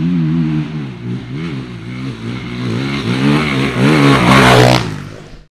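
Dirt bike engine revving up and down over and over as the rider works the throttle, with its loudest, longest climb in pitch about four seconds in, then dying away quickly.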